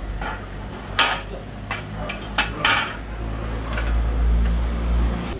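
Metal tools and engine parts clinking as they are handled, several sharp clinks, the loudest about a second in. A low rumble swells in the second half.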